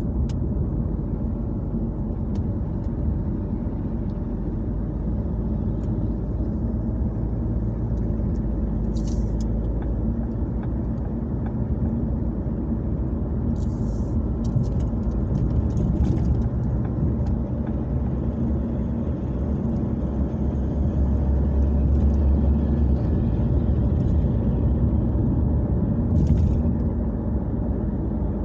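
Steady road and engine noise inside a moving car's cabin: a low rumble that swells a little past the middle, with a few faint clicks.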